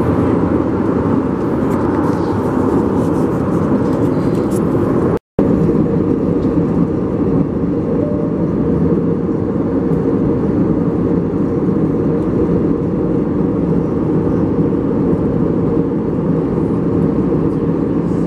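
Steady cabin noise of an Airbus A320neo in flight, heard from inside the cabin at a window seat: an even rush of airflow and engine noise. It cuts out for an instant about five seconds in.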